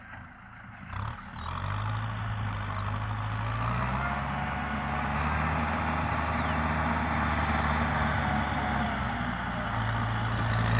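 Kubota M6040 SU tractor's diesel engine running steadily as the tractor works a dry field. It grows louder over the first few seconds as the tractor approaches. Faint high ticks can be heard through it.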